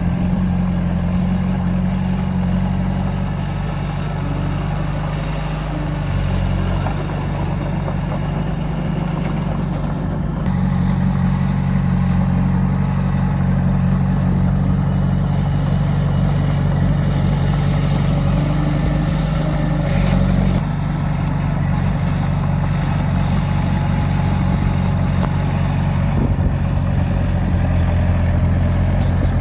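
Heavy earthmoving machinery's diesel engine running steadily at a low, even pitch. The overall sound shifts abruptly three times.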